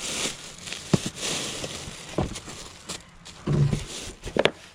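Rummaging through storage boxes: rustling and handling noise, with a few sharp knocks as items are moved, about a second apart at first and again near the end.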